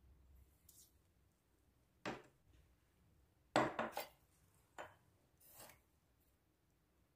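A few short, separate knocks and scrapes of glass kitchenware and a spoon being handled on a granite countertop, the loudest cluster about halfway through.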